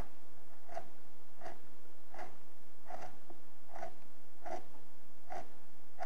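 Steel chisel scraping excess Bondo wood filler, half-cured and still tacky, off painted wood door trim: short scrapes repeated evenly, about one every three-quarters of a second.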